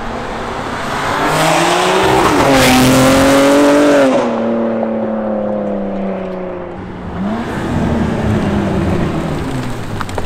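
BMW G82 M4's S58 twin-turbo inline-six, fitted with catless downpipes and running with the exhaust valves open, accelerating hard. The exhaust note climbs loudly for the first few seconds, then falls away off throttle, with a second, shorter rise and fall near the end. It is so loud it sounds pissed off.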